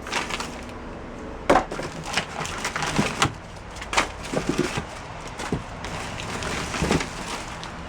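Papers and objects being handled and shuffled while a box is emptied: a rustling with several sharp knocks and clacks.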